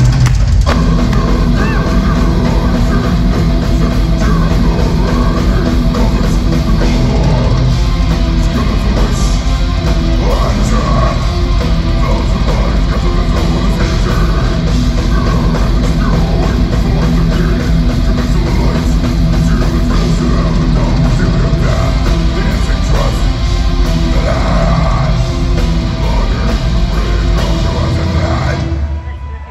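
A metal band playing live and loud: distorted electric guitars, bass and drums, heard from the audience. The sound drops away briefly near the end.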